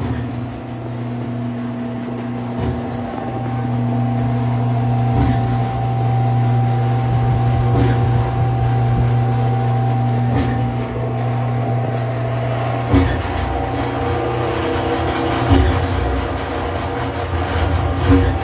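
Biro AFMG 52 mixer-grinder running, its mixing paddles turning in the hopper: a steady electric-motor hum, with a few knocks in the second half.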